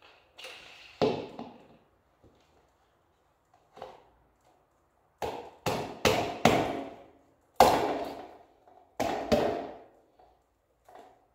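A series of about ten sharp knocks, each ringing out briefly. A few isolated ones come first, then quick runs of two or three about five to ten seconds in.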